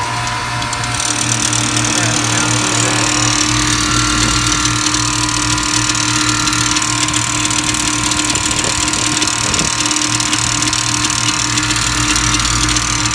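Air-conditioner condensing unit with its hermetic compressor running: a steady hum with several fixed tones over a broad rushing noise. The compressor runs but does not pump because something has broken inside it, which the technician thinks could be a broken valve or a rod.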